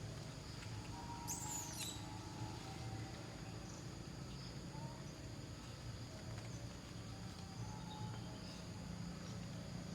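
A brief, very high-pitched falling squeak about a second and a half in, then a few faint short chirps, over a steady low background hum.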